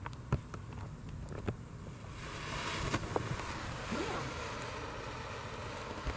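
Ground fountain firework spraying sparks, with a steady hiss that starts about two seconds in.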